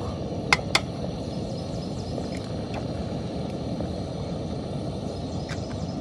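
Steady low background noise with two sharp clicks about half a second in, and a few fainter ticks after.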